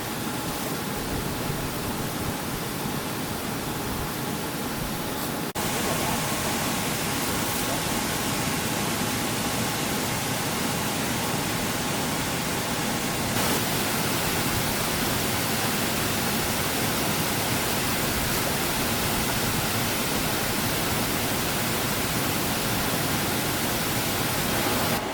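Bubble-type strawberry washing machine running: a steady rush of aerated, churning water with machine noise, a little louder after a cut about five seconds in.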